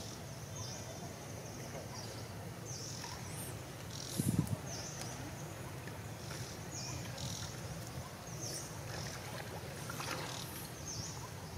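Macaques splashing and playing in pond water. The loudest event is a low thump about four seconds in, and a splash comes about ten seconds in as a monkey drops into the water. A high chirping call repeats every second or two over steady low background noise.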